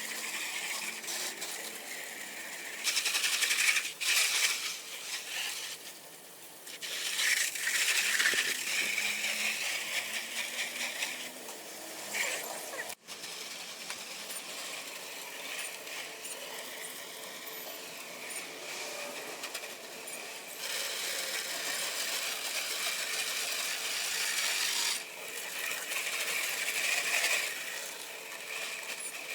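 Garden hose spraying through a hose-end sprayer onto house siding: a steady hiss that grows louder in stretches of a few seconds as the spray is turned onto the wall, with a short break about 13 seconds in.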